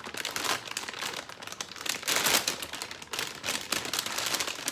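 Crinkling and rustling of a plastic rotisserie-chicken bag as it is pulled open and a hand reaches inside, loudest about two seconds in.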